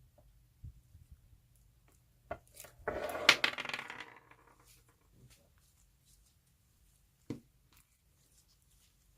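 Small hard candies clattering into a container in a brief burst about three seconds in, with a few single clicks and taps before and after.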